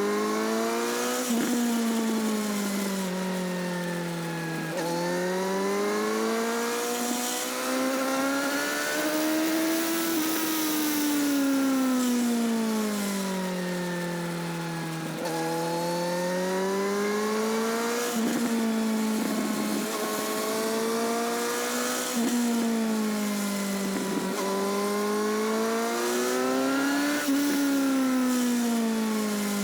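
Motorcycle engine and exhaust at speed, heard close to the exhaust. The engine note climbs and falls again and again as the throttle opens and closes, with a few sharp drops in pitch along the way.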